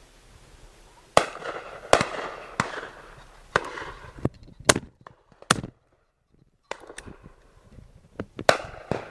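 Shotgun shots at driven game birds: a string of sharp reports at irregular intervals, the loudest and closest a pair about a second in, with others fainter and farther down the line. The sound drops to silence for a moment midway.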